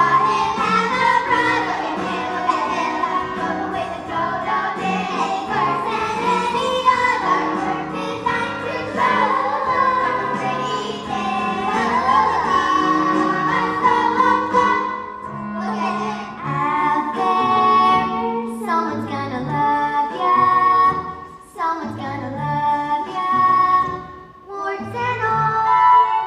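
Young children singing a musical-theatre song over instrumental accompaniment.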